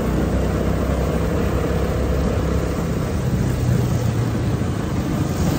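Two-seater go-kart's engine running steadily as it drives around the track, with an even rush of road and wind noise.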